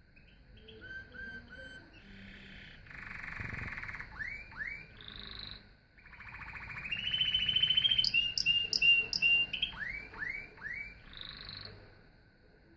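Domestic canary singing: a run of short repeated notes, rising sweeps and buzzy rolls, loudest in a fast trill about seven to nine seconds in.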